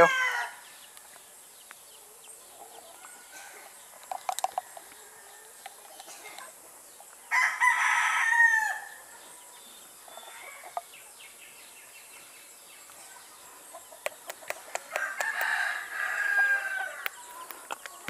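A rooster crows twice: a long call that falls in pitch at its end about seven seconds in, and a weaker one near the end. Light clicks of small plastic vaccine bottles and a dropper being handled come in between.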